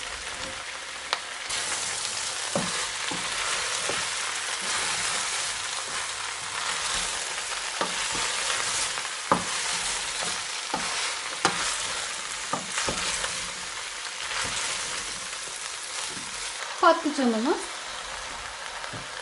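Diced vegetables and beef sautéing in oil in a cooking pot, sizzling steadily, growing louder about a second and a half in, with a spoon stirring and knocking against the pot now and then.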